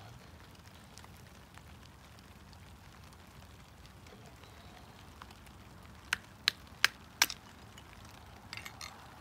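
A knife chopping into a small piece of wood on a rock: four sharp knocks in quick succession about six seconds in, then a few lighter taps near the end.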